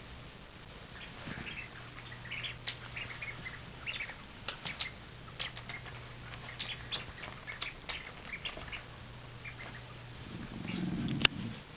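Miniature bull terrier puppies making many short, high squeaks and yips as they play, among light ticks and scuffling. A rustle and one sharp knock come near the end.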